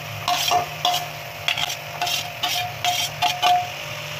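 Metal ladle scraping and tapping against a steel plate as chopped tomatoes and green chillies are pushed off it into a steel pot: a string of about nine short clinks, each with a brief ringing note.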